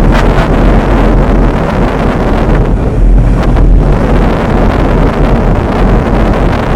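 Wind buffeting the microphone: a loud, steady rumble and rushing hiss with no clear engine tone.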